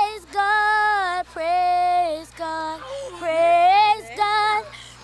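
A girl singing solo and unaccompanied: phrases of held, gliding notes with short breaths between them.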